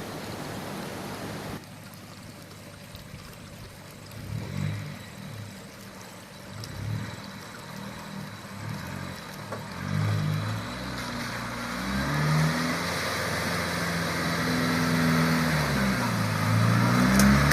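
Nissan GU Patrol's 3.0-litre four-cylinder turbo diesel engine working over an off-road track, its pitch rising and falling repeatedly as it revs and eases off. The sound drops suddenly about a second and a half in, then grows louder toward the end.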